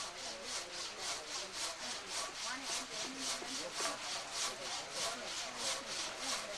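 Handsaw cutting through a wooden plank in steady back-and-forth strokes, about three strokes a second.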